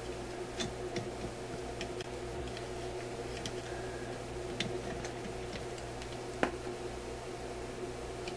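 Scattered small clicks and ticks of a phonograph cartridge being pushed and fitted by hand into the plastic and metal clip of a record player's tone arm head, the sharpest about six and a half seconds in, over a steady low hum.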